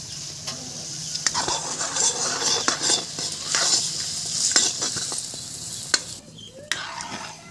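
Meat and spices frying in a kadai, sizzling steadily while a long steel ladle stirs and scrapes the pan with repeated sharp clinks.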